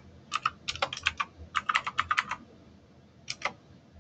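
Typing on a computer keyboard: a quick run of keystrokes for about two seconds, then a pause and a couple of final key presses near the end.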